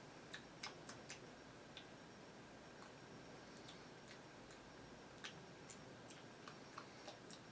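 Faint, irregular sharp clicks of a hardened, 14-year-old fruit snack cracking between the teeth as it is chewed. It has gone hard like candy.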